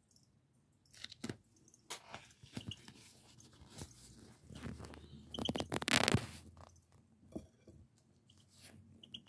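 Scratchy rustling and irregular clicks close to the microphone, loudest about six seconds in, with a few brief faint high chirps.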